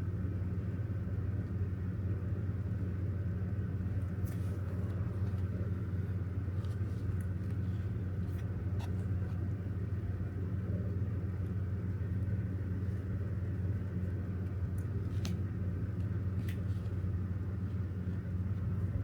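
A steady low rumbling hum throughout, with a few faint sharp clicks scattered through it.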